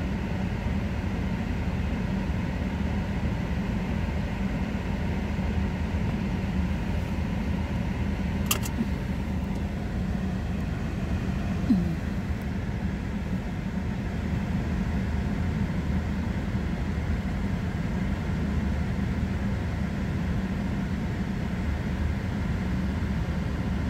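Steady hum of a car idling with its heater fan blowing, heard from inside the cabin while it warms up in the cold. A single sharp click comes about eight seconds in, and a brief squeak a few seconds later.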